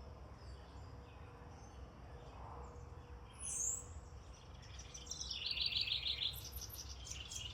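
Small birds calling outdoors: a short, high sliding note about three and a half seconds in, then a quick run of rapid repeated chirps near the end, over faint background noise.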